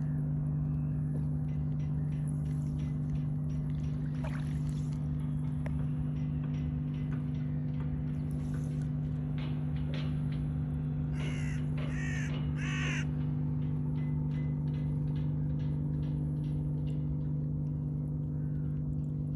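A crow cawing three times in quick succession, about half a second apart, a little past the middle, over a steady low hum.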